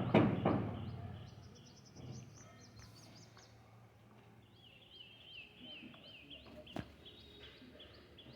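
Small birds chirping over and over in a faint background, after two sharp knocks at the very start. A single sharp click comes near the end.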